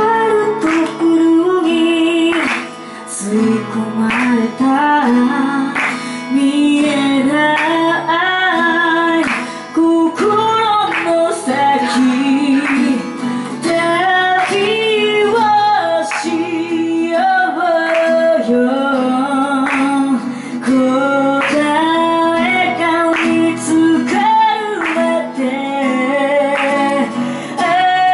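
A woman singing a melody while strumming an acoustic guitar.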